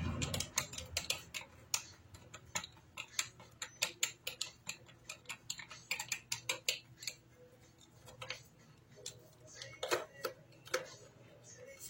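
Rapid run of small sharp clicks, several a second, for about seven seconds, then a few scattered clicks and taps near the end. These are hand tools and screws working on the housing of a Bosch GWS 22-180 angle grinder as it is taken apart to reach its carbon brushes.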